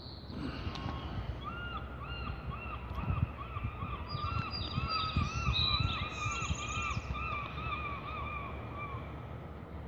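Birds calling: a long run of short, harsh, arching notes about three a second, with higher-pitched calls joining in the middle, over a steady low rumble.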